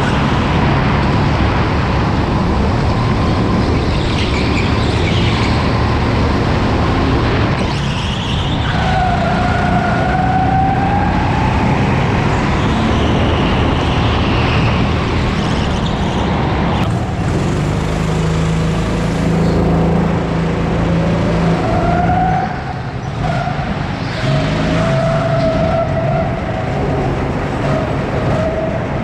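Onboard sound of an indoor electric racing kart at speed. The motor's whine rises and falls in pitch as the kart accelerates out of corners and slows into them, over a steady low rumble from the tyres and chassis.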